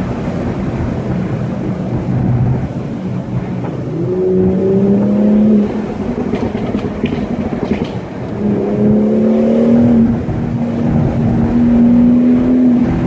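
Car engine and tyre noise heard from inside the cabin while driving: a steady hum from the engine over road rush. The engine note fades away about six seconds in and comes back about two seconds later, climbing slowly as the car pulls again.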